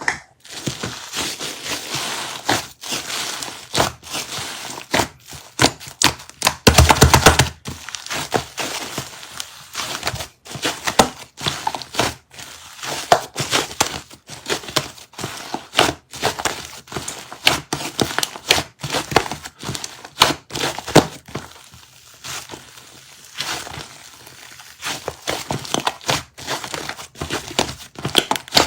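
Shaving-foam slime being squeezed and pressed by hand, giving a dense run of crackling and popping clicks, loudest in a burst about seven seconds in.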